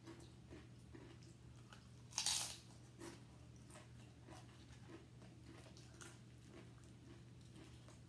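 A loud crunch of a bite into tortilla chips about two seconds in, followed by softer, regular crunching as the nachos are chewed, over a faint steady hum.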